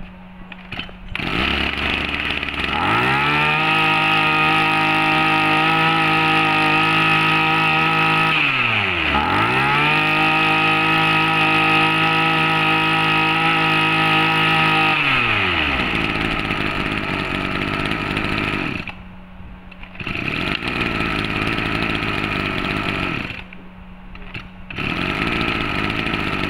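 Small 24cc two-stroke brush cutter engine starting about a second in and revving up to a high, steady speed. Its revs dip sharply once and climb straight back, then about fifteen seconds in it drops to a rough idle.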